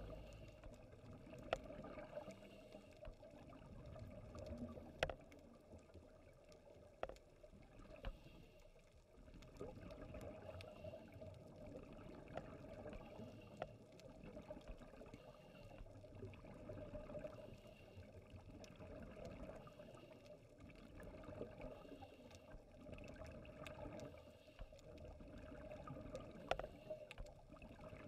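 Faint underwater ambience picked up by a dive camera: a low steady wash of water noise with scattered sharp clicks, the loudest about 1.5 and 5 seconds in.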